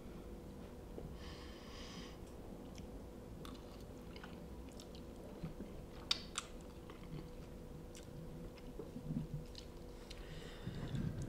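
A person eating instant ramen noodles with a fork: faint chewing, with a short airy slurp about a second in and again near the end, and a few small clicks around the middle.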